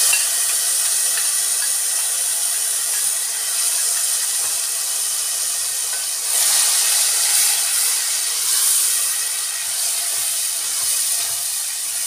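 Grated tomato sizzling steadily in hot oil and spices in a non-stick kadhai while a spatula stirs it, the frying hiss swelling a little about halfway through.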